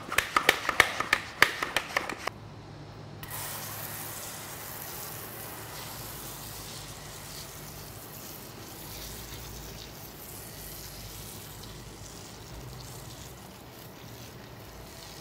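IK Foamer hand pump sprayer being pumped up with about a dozen quick strokes, then, from about three seconds in, a steady hiss as it sprays thick foam from its nozzle onto a car wheel.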